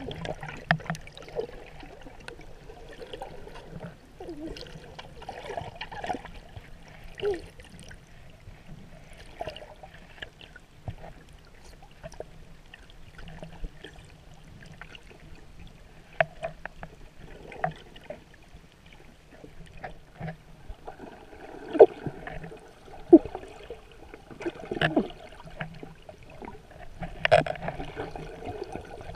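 Shallow sea water heard through an underwater camera: a muffled wash and gurgling, broken by many irregular small clicks and knocks, with a few louder knocks in the second half.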